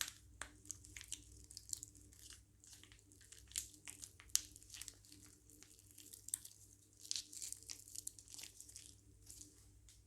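Hands working plastic piping bags and slime, making quick, irregular crinkling and crackling with many small sharp crackles, a few louder ones about three and a half and four and a half seconds in.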